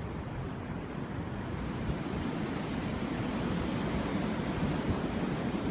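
Strong storm wind blowing steadily, a continuous low rushing noise.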